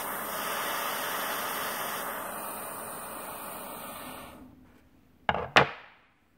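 Butane pencil torch flame hissing steadily while heating a threadlocked screw to loosen the Loctite, then going out about four seconds in. Two sharp knocks follow, the loudest sounds here, as the torch is set down on the wooden bench.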